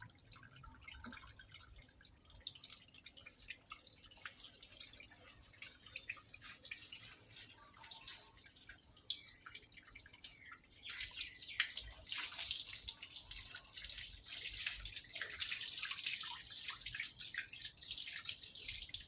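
Running water splashing and dripping, flowing hard and getting louder about halfway through.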